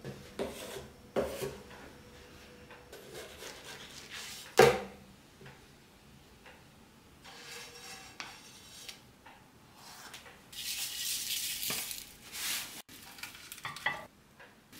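Cooking and handling sounds of a frying pan, wooden spatula and plate: scattered clinks, scrapes and knocks, with one sharp, loud knock about a third of the way in. A couple of seconds of hissing come later on.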